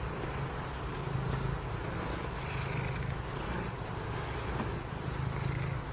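Domestic cat purring steadily close to the microphone, the low purr swelling and easing every couple of seconds with her breathing, over the soft rustle of her fur being rubbed and brushed.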